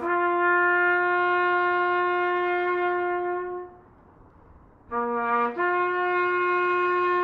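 Brass music, a trumpet-like instrument holding long steady notes: one held note dies away about three and a half seconds in, and after a short pause a brief lower note leads into another long held higher note.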